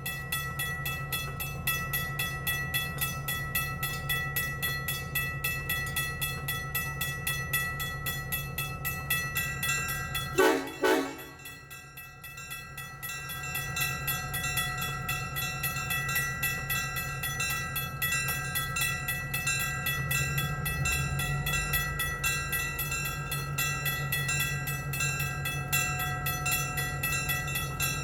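A diesel locomotive running with a steady throbbing rumble, with one short horn blast about ten seconds in. From about twenty seconds in the engine note grows deeper and louder as it throttles up.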